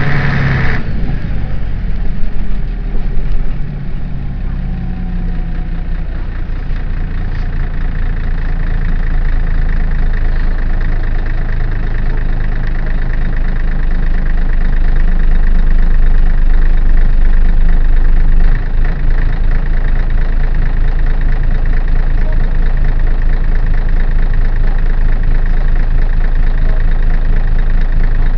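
Scania CN113ALB bus's rear-mounted 11-litre six-cylinder diesel engine running, heard from inside the passenger cabin. A loud hiss cuts off less than a second in, then the engine note grows slowly louder before dropping briefly about two-thirds of the way through.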